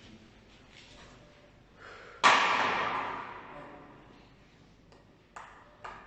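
A single sudden hit about two seconds in that rings on and fades away over about two seconds, over faint background noise.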